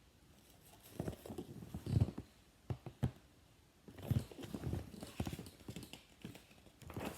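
A string of soft, irregular thumps and taps, starting about a second in.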